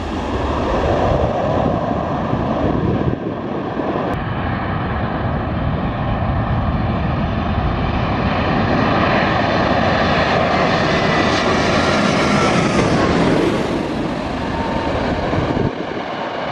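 Twin-engine jet airliner on final approach, passing low overhead: a loud, steady engine roar that is loudest about twelve seconds in, with a whine that falls in pitch as the aircraft passes.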